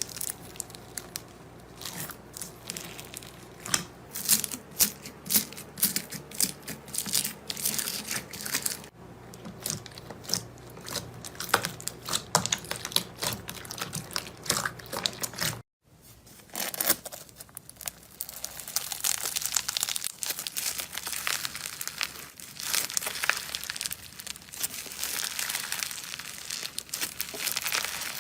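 Slime being squeezed, stretched and poked by hand, giving a dense run of irregular crackling and popping clicks, with a brief break about sixteen seconds in.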